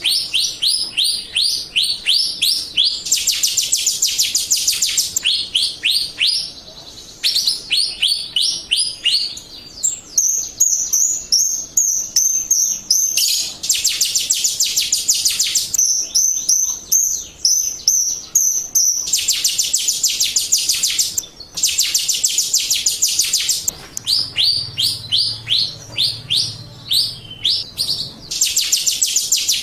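Jalak Rio starling singing nonstop: fast runs of sharp rising chirps broken by harsh, buzzy rattling phrases and a few high whistled notes, the full 'gacor' song used as a lure to make other Jalak Rio answer.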